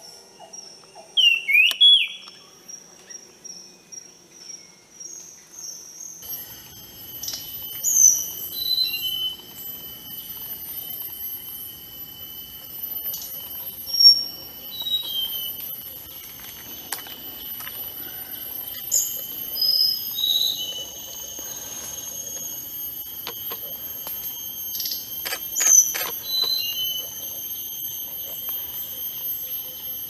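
A wild songbird singing short, clear whistled notes, some sliding up or down in pitch, one every second or two. Steady high-pitched ringing sets in underneath about six seconds in.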